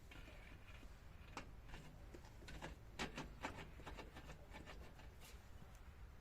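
Faint, irregular light clicks and knocks, a cluster of them about halfway through, over a low hum.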